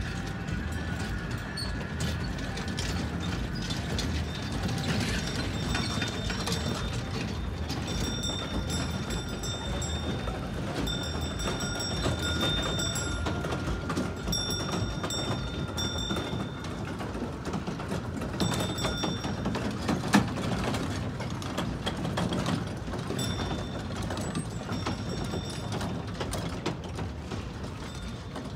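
Electric trackless kiddie train and its trailer cars rolling over paving stones: a steady mechanical rattle and clatter of wheels and couplings, with a thin high squeal that comes and goes several times.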